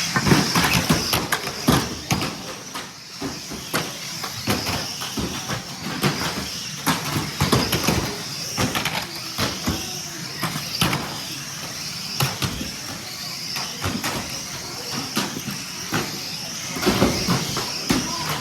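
Radio-controlled cars running, with a steady high whine under many quick clicks and knocks throughout.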